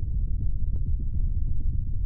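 Science-fiction UFO sound effect: a steady, deep rumble with a rapid fluttering texture.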